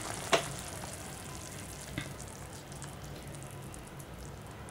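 Tamarind-based onion kuzhambu bubbling at a full boil in a stainless steel pot, a steady bubbling noise. A sharp click sounds about a third of a second in, and a fainter one about two seconds in.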